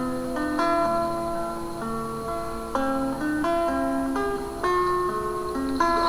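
Acoustic guitar playing a slow, calm melody of single plucked notes, each left to ring.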